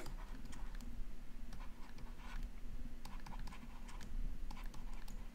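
Faint, irregular taps and light scratching of a stylus writing on a tablet screen, over a steady low hum.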